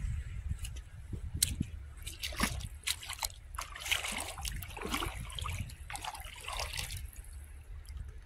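Feet wading through shallow water, splashing and sloshing with each step, over a steady low rumble.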